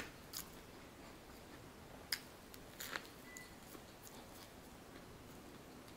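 Quiet chewing of a crusty bánh mì baguette, with a few short crackles from the crust near the start and around two and three seconds in.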